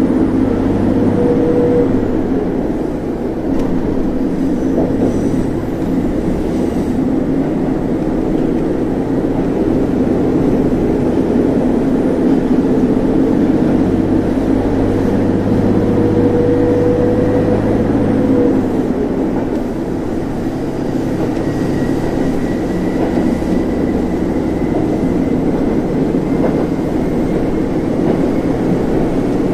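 Interior running sound of a JR Central KiHa 25 diesel railcar under way: its underfloor diesel engine drones steadily over the rumble of wheels on rail. A humming tone in the drone holds steady and then falls away about two-thirds of the way through.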